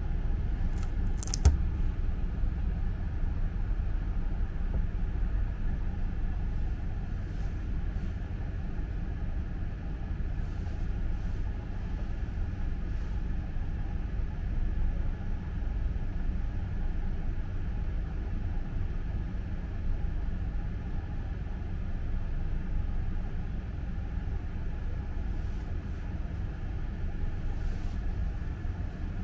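Steady low rumble of a London bus in motion, heard from on board, with a single sharp click about a second and a half in.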